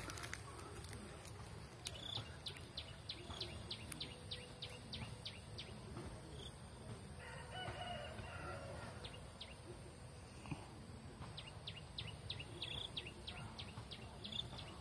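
A rooster crows once, faintly, about seven seconds in, the call lasting about two seconds. Before and after it there is a steady run of short high ticks, several a second, over a low rumble.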